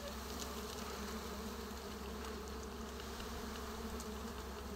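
A colony of dwarf honey bees (Apis florea) buzzing steadily around their exposed comb as the nest is handled.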